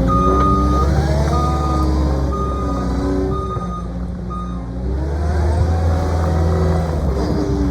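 Cat 259D compact track loader's diesel engine running as it works, its pitch drifting up and down, with the backup alarm beeping five times at about one beep a second in the first half, the sign that the machine is reversing.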